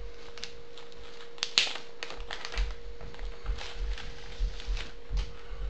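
Scattered small taps, clicks and rustles of a replacement laptop LCD screen panel being handled and set down, over a steady faint hum.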